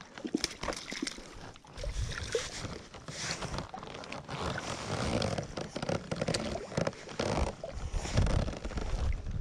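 Shallow lake water splashing and sloshing around a landing net as a cutthroat trout is handled in the water, with uneven low rumbles under the splashing.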